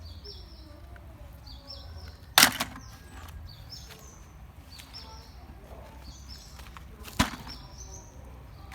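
Two sharp knocks of hard objects, the louder about two seconds in and a second near the end, with a small bird chirping faintly and repeatedly throughout.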